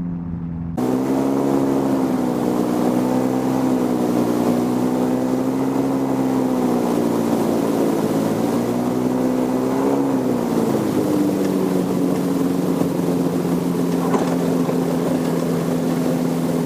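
Rotax 582 two-stroke engine of an ultralight aircraft running at low power on the ground, its pitch wavering, then dropping about ten seconds in and holding steady.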